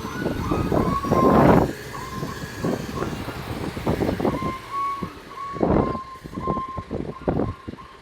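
Heavy machinery working, with short high squeals coming at irregular intervals over rattling, clattering noise.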